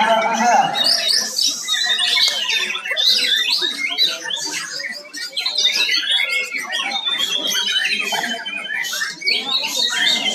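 Many caged lovebirds singing at once: dense, overlapping squawks, chirps and rapid trills (the lovebird's 'kekek') with no break.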